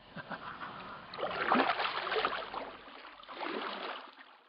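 Kayak paddle strokes splashing and dipping in lake water beside a light plastic kayak: a louder stretch of splashing about a second and a half in, and a shorter one near the end.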